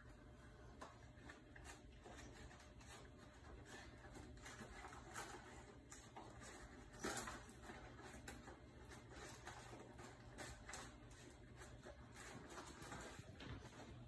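Faint crinkling and rustling of a paper microwave popcorn bag as a miniature Australian Shepherd with its head stuck inside licks and munches, in short scattered crackles with a louder one about seven seconds in.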